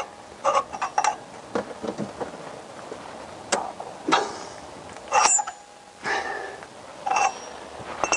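Steel hand tools clinking and knocking: a ratchet, T-bar and extension bars shifted and refitted on the socket of a stuck sump drain plug. There are about eight sharp clinks at uneven intervals, a few ringing briefly.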